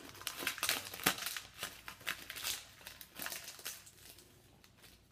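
Foil wrapper of a trading-card pack crinkling as it is pulled open by hand, a quick run of crackles that dies away near the end.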